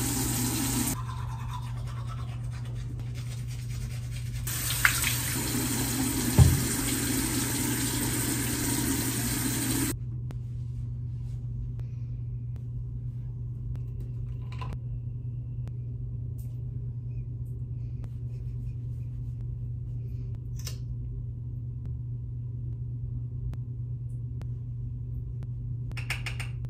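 Tap water running into a bathroom sink while teeth are brushed, the water hiss breaking off once and then stopping abruptly about ten seconds in. After that only a steady low hum remains, with a few faint clicks of small makeup items being handled.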